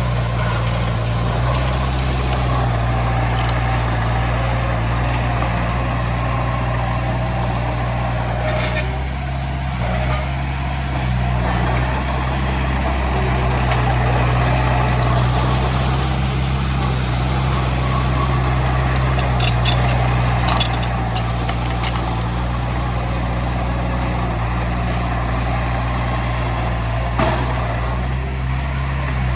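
Heavy diesel engine of earthmoving machinery running steadily under load, with scattered metallic clanks and a few brief high squeaks.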